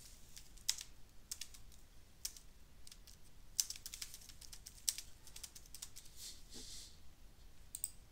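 Computer keyboard typing: faint, irregular keystrokes as a name is typed in.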